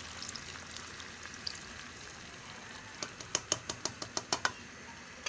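Pan of chicken in tomato sauce sizzling softly as water is poured in, then a quick run of sharp crackling pops about three seconds in.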